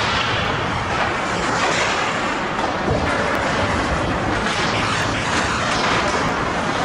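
Steady, loud din of an indoor ice rink during a hockey scrimmage, with a few faint knocks from sticks, puck and skates.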